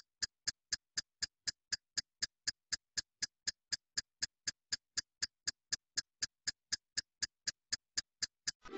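A dubbed-in clock-like ticking sound effect: sharp, identical ticks about four a second with silence between them. Music comes in just at the end.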